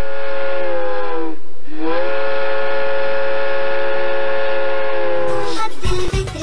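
Train whistle sound effect: a loud chord of several tones blowing twice. The first blast drops in pitch and cuts off about a second and a half in; the second rises back to pitch and holds steady until just before the end.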